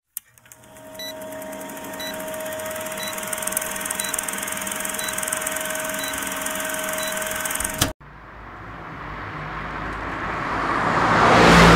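Old film-projector countdown sound effect: a steady whirring rattle with a hum and a short tick about once a second, ending in a brief burst about eight seconds in. Then a whoosh that swells up to a peak at the end.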